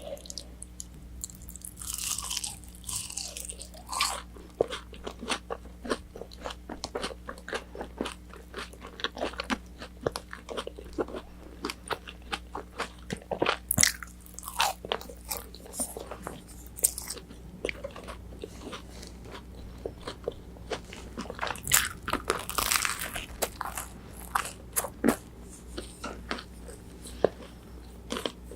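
Close-miked eating sounds: biting and chewing crispy orange chicken, a dense run of sharp crunches with chewing between them.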